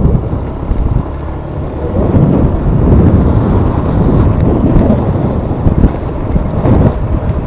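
Wind buffeting the microphone: a loud, uneven low rumble that swells and dips.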